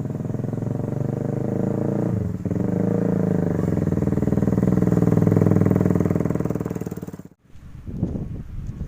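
Vehicle engine running while under way. It dips briefly about two seconds in, then builds up and cuts off suddenly near the end.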